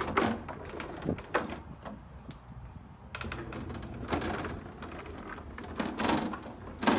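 Tall wooden shelving unit being turned around by hand, giving a string of knocks and scrapes.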